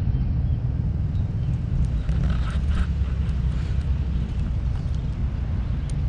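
Steady low rumble of a vehicle driving, engine and road noise with no sharp events.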